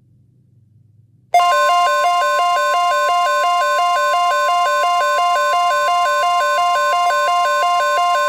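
Emergency Alert System attention tone: a loud electronic alarm starting about a second in, one steady high tone under a warbling tone that switches between two pitches several times a second, held unchanged until near the end, heralding a severe thunderstorm alert broadcast.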